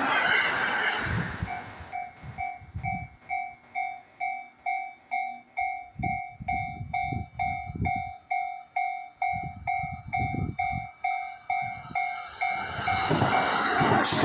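A Japanese level-crossing warning bell rings in an even electronic ding, about two and a half strikes a second, while the crossing stays closed. At the start the noise of a passing electric commuter train dies away. Near the end another train's running noise swells and drowns out the bell.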